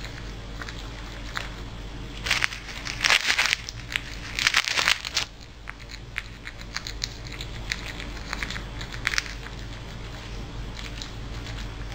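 A rock squirrel nibbling a piece of bread held in its paws: fine crackly clicks of gnawing throughout, with two louder bursts of crinkling plastic from the bread bag about two and four and a half seconds in.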